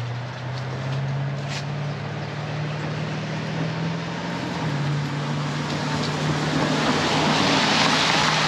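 A motor vehicle's engine running at a steady pitch, with road noise growing louder near the end.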